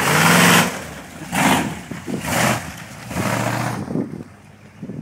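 Dodge Ramcharger's engine revving hard in four bursts about a second apart as the truck climbs a snowy dirt trail, then fading near the end.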